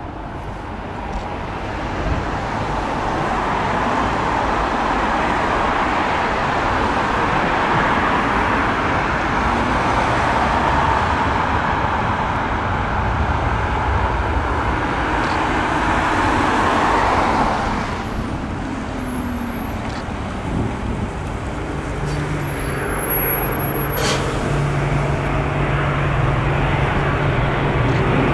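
Jet noise from a Boeing 747-400 on final approach with gear down, its four Rolls-Royce RB211 engines growing louder as it nears, then dropping off abruptly a little past halfway. In the last part a bus engine idles with a steady low hum under the aircraft and road traffic.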